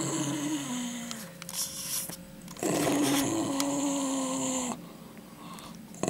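Pekingese growling low with a chicken bone in its mouth, guarding it against a hand reaching to take it. There are two long growls: the first fades about a second in, and the second starts a little under three seconds in and lasts about two seconds, each sinking slightly in pitch.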